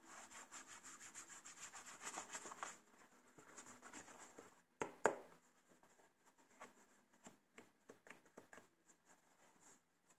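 Hands handling a Nike Air Max Exosense sneaker in its cardboard shoebox: faint rubbing and rustling for the first few seconds, two louder knocks about five seconds in, then scattered light taps and rustles.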